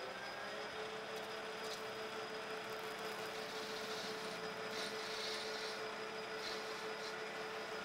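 Metal lathe running while a turning tool faces the brass hub of a model steam engine flywheel flush with the flywheel's side. There is a steady machine hum, a steady whine that sets in a little under a second in, and brief scratchy hisses as the tool cuts and chips come off.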